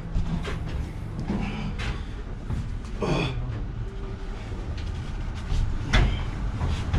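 Knocks, bumps and scrapes of a man squeezing out through a pickup truck's side window, with a sharp thump near the end, over a steady low rumble.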